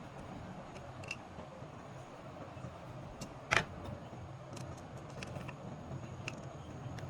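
Scattered light metallic clicks and taps from working the small metal hose clip on the steam iron's pump-to-boiler hose, with one louder click about three and a half seconds in, over a steady low background rumble.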